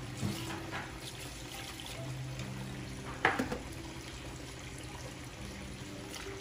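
Water swirling and splashing in a pedicure spa foot bath, with a low hum that comes and goes and a single sharp knock about three seconds in.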